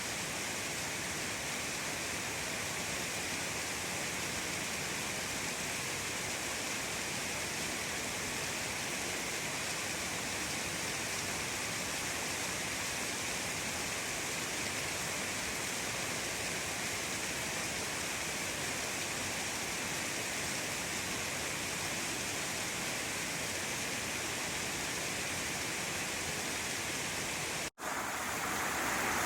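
Gyōban Falls waterfall rushing with a steady, even roar of falling water, broken by a momentary drop-out near the end.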